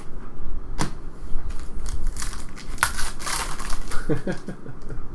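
Crinkling and crumpling of a trading-card pack wrapper and cards being handled, with a few sharp clicks and a burst of crackling about two to three seconds in.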